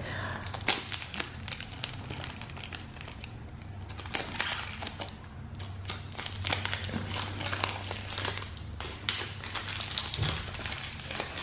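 Cellophane shrink-wrap on a deodorant box crinkling and crackling in irregular bursts as it is handled and peeled off.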